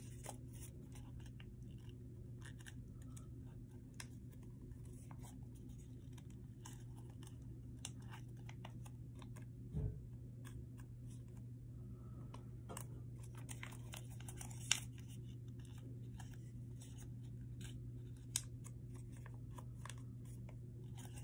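Paper being folded and creased by hand into an origami jet: faint, scattered crinkles and clicks. A soft thump comes about halfway through, and sharper clicks a few seconds later.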